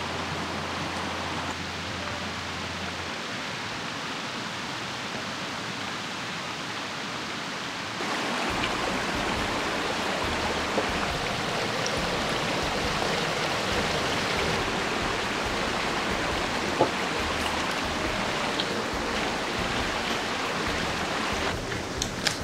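Shallow woodland brook rushing and rippling over stones, a steady rush of water that gets louder about eight seconds in. A few sharp taps near the end.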